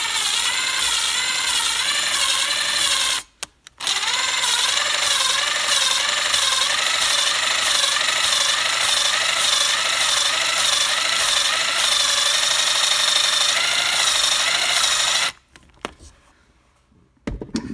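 Valve grinding compound grinding between a valve face and its seat in a 062 Vortec small-block Chevy head as the valve is hand-lapped with a suction-cup lapping stick. It is a metallic grinding that rises and falls in pitch with each back-and-forth twist, breaks off briefly about three seconds in, and stops about fifteen seconds in.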